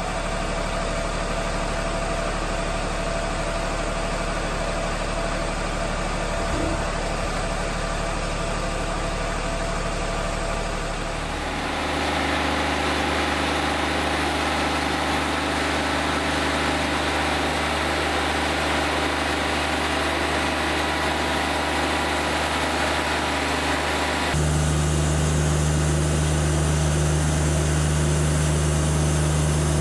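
Wood-Mizer LT40 Wide portable bandsaw mill running steadily, its engine driving the band blade through a walnut log. The steady drone shifts abruptly to a new note about a third of the way through and again about four-fifths of the way through.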